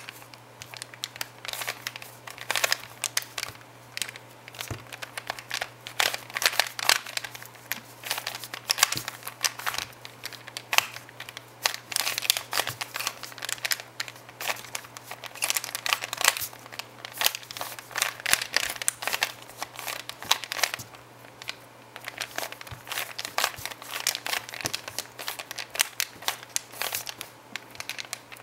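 Rubik's Cube being turned fast by hand during a speed solve: a rapid, irregular clatter of plastic clicks as the layers snap round, with a few brief pauses.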